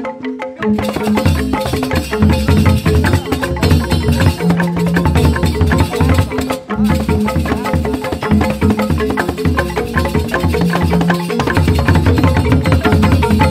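Balinese joged bungbung gamelan: bamboo grantang xylophones struck with mallets in fast, dense interlocking patterns over low bass tones. The music briefly drops out near the start, then resumes.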